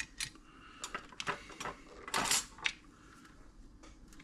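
Scattered light clicks and taps of small tools and test probes being handled on a workbench, with a brief scrape a little after two seconds.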